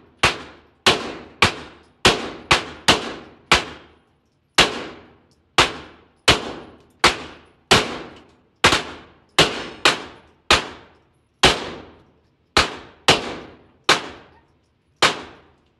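Handgun shots at an indoor range, about twenty in irregular succession, roughly one every half second to a second, from several shooters in neighbouring lanes. Each crack is followed by a short echoing tail.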